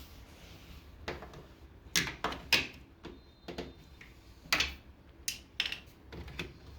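About ten irregular, sharp knocks and clatters, like hard parts or tools being handled and set down. The loudest come around two seconds in, with a steady low hum beneath.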